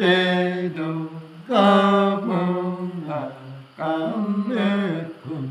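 A man singing a slow, unaccompanied chant-like folk song: three long phrases of held notes, each stepping down in pitch at its end, with short breaths between them.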